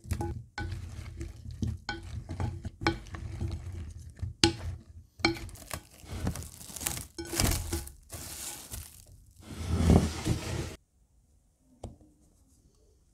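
Cauliflower florets tipped into a glass bowl of marinade and tossed, with scattered light knocks against the glass. Then plastic cling film is pulled and stretched over the bowl, crinkling and tearing for about five seconds. It stops suddenly near the end, leaving one soft tap.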